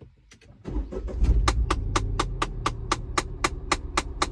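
A car starting with a low rumble less than a second in, then a steady rhythmic knocking, about four sharp ticks a second, over the running engine, like drums beating. It is a noise on starting that the owner cannot explain and has had for a long time.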